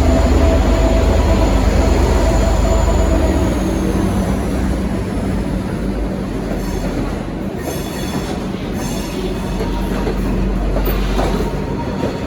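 V/Line N-class diesel-electric locomotive pulling a train out of the station: a loud, deep engine rumble that eases off a few seconds in. The passenger carriages follow, rolling on with their wheels squealing shrilly on the curved trackwork twice in the second half.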